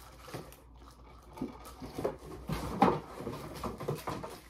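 Packing paper and a cardboard box being handled as a wrapped warmer is unpacked by hand: short, scattered rustles and light knocks.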